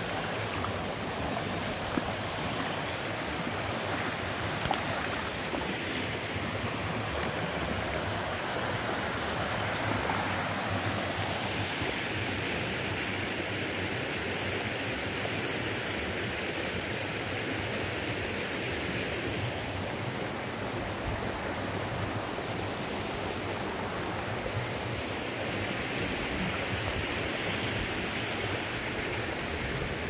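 Water of a rocky stream running steadily over stones and small cascades into pools.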